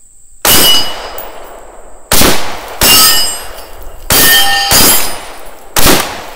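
Six 5.56 rifle shots from an AR-15-style rifle, irregularly spaced about a second apart, each followed by the ring of steel targets being hit.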